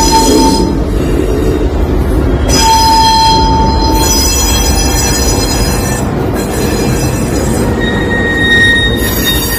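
EMD GP9 diesel switcher with its 16-cylinder 567 two-stroke engine rumbling past at slow speed, its wheels squealing against the rail. There is a short squeal at the start, a long high squeal about three seconds in, and a higher-pitched squeal near the end.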